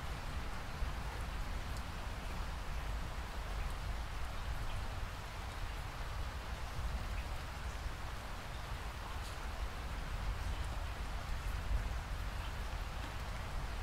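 Steady rain falling: an even hiss with a low rumble beneath it and faint, scattered drop ticks.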